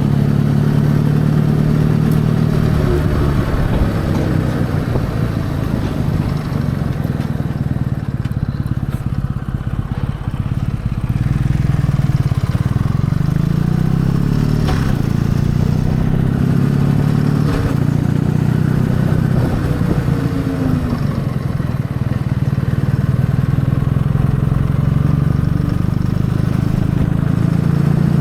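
Kawasaki W650's air-cooled parallel-twin engine running while the motorcycle is ridden, its pitch rising and falling several times with throttle and gear changes, with a short drop in loudness about ten seconds in.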